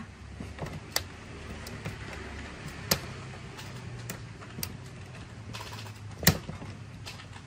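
Scattered sharp clicks and light taps of metal handling as MIG welding wire is worked through a welder's wire feed mechanism. The loudest click comes a little past six seconds in.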